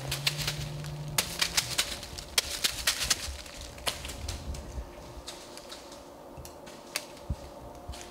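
Handling noise from camera and gear in a tree stand: rapid, irregular sharp clicks and light taps, busy for the first few seconds and then sparser, with a short low hum at the start.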